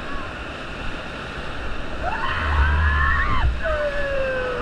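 Whitewater rapid rushing loudly around an inflatable raft. From about two seconds in, the rafters yell and whoop over the water, ending in one long falling cry.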